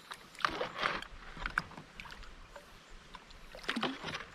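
Kayak paddling: a handful of short paddle splashes and knocks against the kayak.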